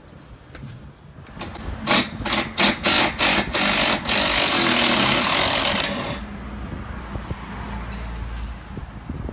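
Cordless impact tool unscrewing the mounting bolts of a rooftop solar water heater: about five short trigger bursts, then a steady run of about two seconds before it stops.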